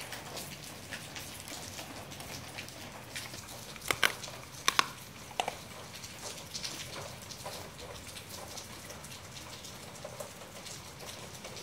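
Taiwanese dog eating scattered food off a concrete floor: irregular small clicks and taps of mouthing and licking, with a few louder ones about four to five and a half seconds in.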